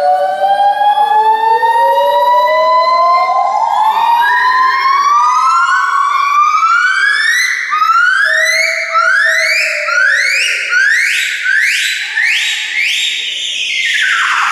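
Primate calling: a series of whooping calls that rise in pitch. It starts with long, slow upward slides, then the notes get shorter, quicker and higher, and near the end a final note falls away.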